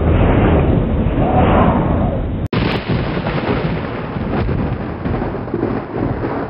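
Loud, dense rumbling noise, thunder-like, with an abrupt cut and restart about two and a half seconds in.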